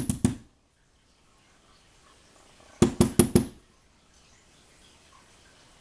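Rapid metal knocking from a lock being tapped to shake out driver pins stuck in their chambers: a quick run that stops just after the start, then about five sharp knocks in quick succession about three seconds in.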